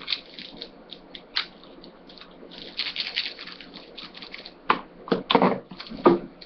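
Trading cards and pack wrappers being handled: irregular rustling and crinkling clicks, with a few louder sharp knocks near the end.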